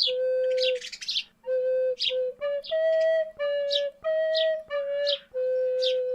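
A slow, gentle flute melody of held notes, each under a second, with short bird chirps falling in the gaps between the notes.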